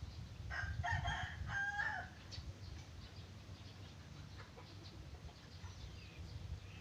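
A rooster crowing once: a call of about a second and a half that drops in pitch at the end, over a low rumble. Faint short chirps follow.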